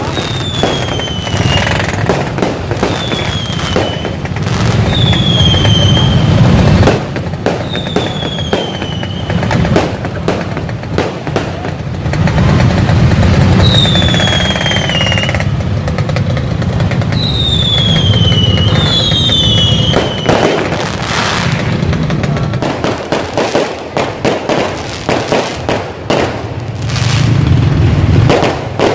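Fireworks going off: whistling rockets give repeated falling whistles, each about a second long, amid frequent bangs and crackling bursts over a steady low rumble.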